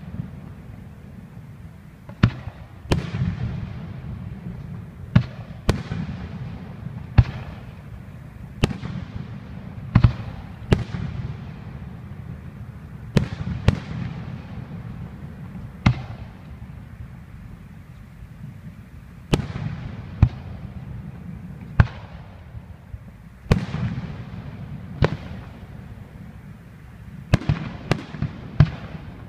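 Aerial fireworks bursting: a string of loud sharp bangs, each followed by a rolling echo, a few seconds apart at first and coming in a quick cluster near the end.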